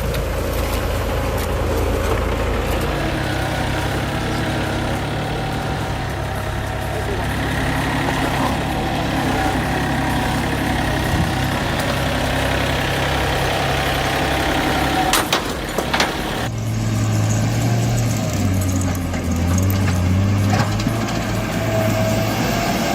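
Engine of heavy forestry machinery running steadily. About two-thirds of the way through the sound changes, and the engine note then steps up and down.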